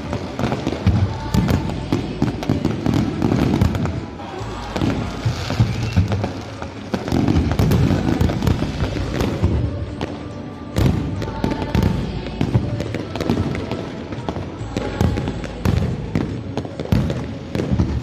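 Fireworks going off in a dense, continuous barrage of bangs and crackles, with music and voices underneath.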